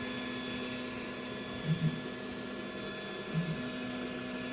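Snapmaker U1 3D printer running a print: a steady motor whine of several held tones, broken twice by a short low blip where the motion changes.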